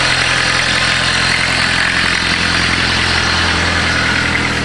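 Volkswagen diesel engine, newly fitted into a minivan, idling steadily.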